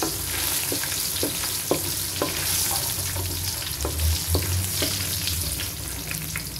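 Mixed seeds, curry leaves and chilies sizzling steadily in hot oil, the tempering for sambar, while a wooden spoon stirs them and knocks against the metal pan about twice a second.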